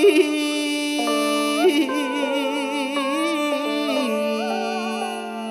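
Chèo music, Vietnamese traditional opera: the orchestra plays a melodic passage between sung phrases, with several wavering, vibrato-laden instrumental lines.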